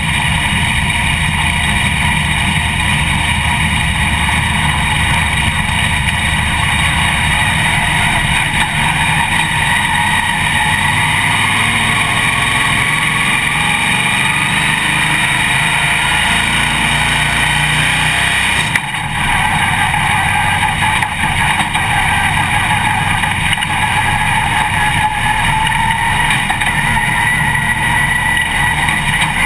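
Dirt late model race car's V8 engine running hard at speed on a dirt oval, heard from inside the cockpit as a loud, steady drone. The note dips briefly about two-thirds of the way through, then picks straight back up.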